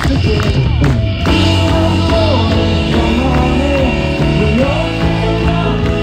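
Rock-style Christian worship song played by a band with drums and keyboard, a lead voice singing a sliding melody over it.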